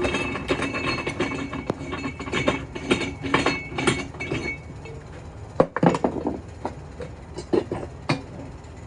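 Metal clinking and clattering, a dense run of sharp knocks with some ringing that thins out about halfway through to a few separate knocks.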